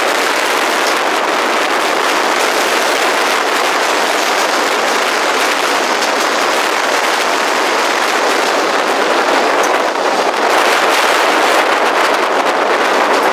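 Train running along the rails, heard from an open carriage window: a steady rush of wheel and wind noise with faint clicks, growing slightly louder near the end.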